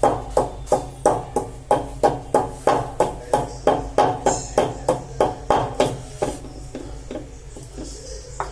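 A pestle pounding a cinnamon stick in a mortar, grinding it to powder: steady, even strikes at about three a second, each with a short ring, stopping about six seconds in.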